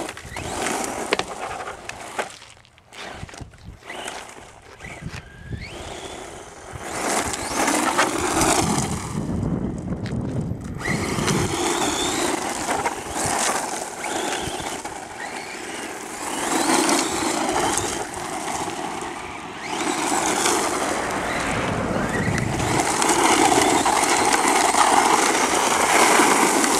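HiMOTO RC monster truck with a brushless electric motor driving on loose gravel: the motor whine rises and falls with the throttle over the crunch and spray of gravel under the tyres, swelling in waves as it accelerates and spins.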